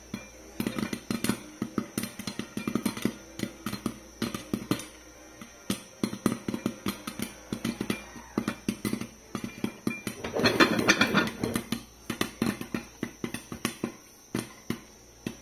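Popcorn kernels popping in a covered aluminium pot on a gas stove: irregular sharp pops against the pot and lid, with a dense flurry of pops about ten seconds in.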